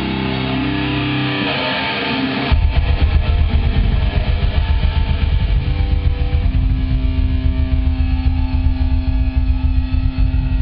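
Heavy metal band playing live with electric guitar: a held chord rings at first, then about two and a half seconds in the full band comes in loud with a fast, driving riff.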